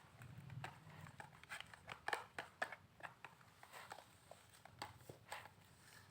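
Spoon stirring a wet clay-and-water slime mixture in a container: faint, irregular clicks, scrapes and squishes.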